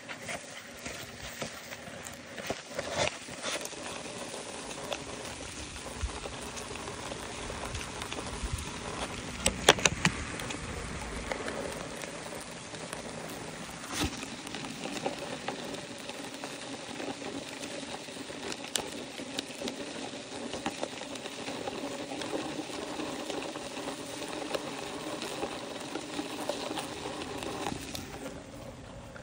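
German yellowjackets crawling and buzzing inside a plastic collection bottle: constant small clicks and patter of legs and wings against the plastic over a steady hiss, with a few louder knocks about ten seconds in and again near the middle.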